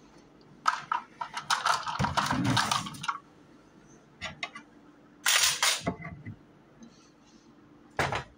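Handling noise of things on a kitchen counter: a run of clicks and knocks with some low thuds lasting about two seconds, a short clatter about five seconds in, and a sharp knock near the end.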